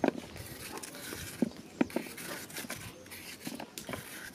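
Knives slicing crisp green bell peppers held in the hand, with a few sharp clicks and taps, the loudest near the start and two close together about a second and a half in.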